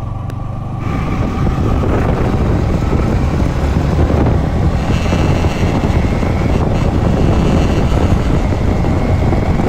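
Yamaha MT-15's 155 cc single-cylinder engine running as the bike is ridden, with wind noise on the microphone, louder from about a second in. The riding is meant to bring out a crackling rattle from the headlight assembly that appears around 5,000–6,000 rpm.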